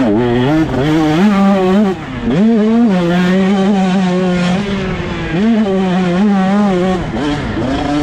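KTM 125 SX's 125 cc two-stroke single-cylinder engine revving hard under race throttle. Its pitch climbs, drops and jumps back up about two seconds in, holds high and steady, dips again a little past the middle, and swings rapidly up and down near the end.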